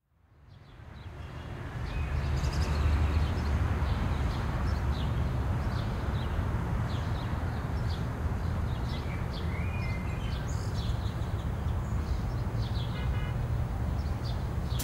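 Outdoor ambience fading in over the first two seconds: many short bird chirps over a steady, noisy low rumble.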